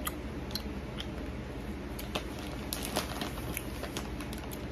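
Cheese popcorn being chewed with the mouth closed, giving irregular small crunches and clicks. She finds it very dry and stale. A steady low hum runs underneath.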